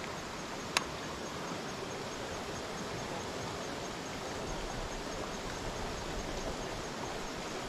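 Steady rush of creek water, an even hiss with no rhythm, and a single sharp click about a second in.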